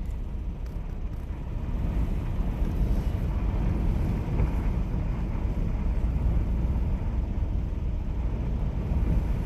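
Steady low rumble with a haze of noise, heard from inside a parked vehicle's cabin.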